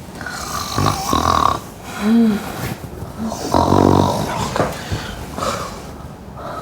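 A woman snoring in separate snores: a rough snore about a second in, a short rising-and-falling pitched one near two seconds, and a longer buzzing snore around three and a half seconds.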